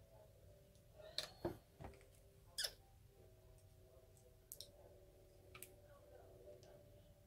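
Quiet clicks and taps of makeup cases and brushes being handled, about half a dozen over a few seconds, over a faint steady hum.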